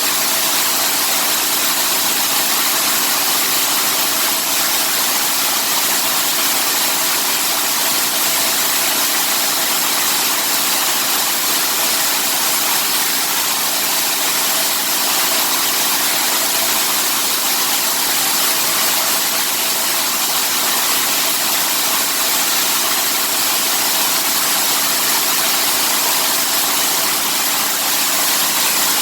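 Locally built mini coffee huller running steadily while hulling dried parchment coffee: a loud, even hiss with a steady hum underneath.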